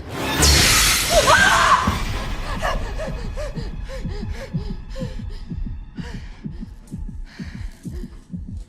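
Horror-film sound design: a sudden loud burst with a sharp gasp, then a run of rapid low throbbing pulses, about four a second, that fade toward the end.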